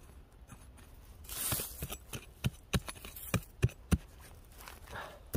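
A hand digging tool chopping and scraping into soil to dig out a wild bellflower root: a brief scraping rustle, then a run of sharp strikes about three a second.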